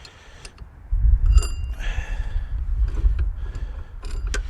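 Light metallic clinks and clicks of snowblower parts being handled, one with a short ringing tone about a second and a half in, over a low rumble.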